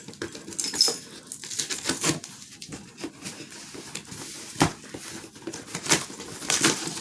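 Packaging being handled and unpacked: irregular rustling and crinkling, with a few sharp knocks and clicks as items are moved and set down.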